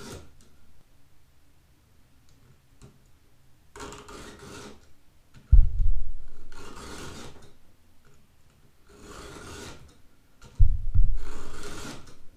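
Chainsaw chain being hand-filed with a 2-in-1 file sharpener, its round and flat files rasping across the cutters and depth gauges of an Oregon 3/8 chain. There are four strokes, and two of them start with a heavy thump, the loudest sounds here.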